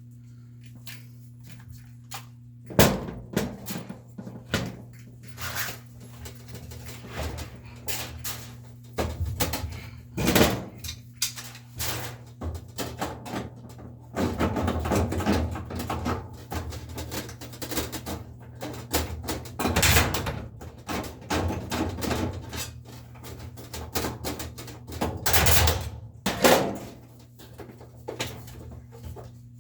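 Irregular knocks, clunks and rubbing or scraping, with a few longer scraping stretches, over a steady low hum.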